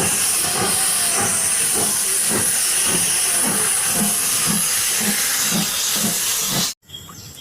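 Water spraying with a loud, steady hiss, washing mud off a toy train, with faint rhythmic scrubbing strokes about twice a second underneath; it cuts off suddenly near the end.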